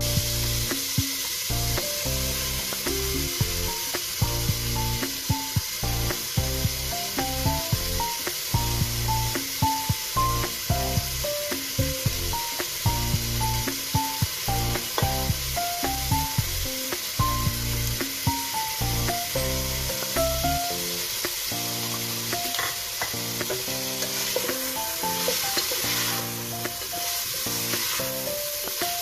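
Chunks of meat sizzling in oil in an aluminium pot, with a wooden spoon stirring and scraping near the end. Background music with a steady beat plays over it, its bass dropping out about two-thirds of the way through.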